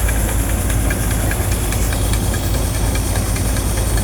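Engine of a rice-harvesting machine running steadily at a constant speed, a deep continuous hum with faint light ticking over it.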